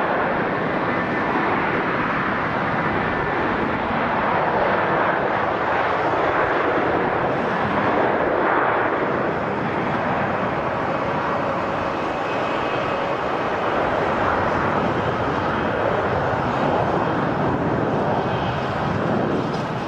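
Jet airliner engines running loud and steady, a broad rushing noise with a faint high whine in it.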